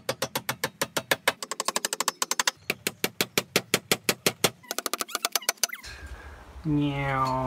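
Rapid, evenly spaced hammer blows, about seven a second, driving nails through a galvanised steel band into a wooden tabletop. Near the end the blows stop and a steady humming tone sets in.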